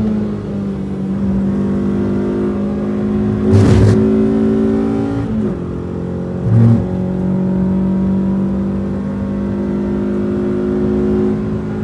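Renault Twingo RS engine running hard on track, heard from inside the cabin, its note held fairly steady. A short, loud thump a little under four seconds in is the loudest moment, and the engine note dips briefly twice soon after.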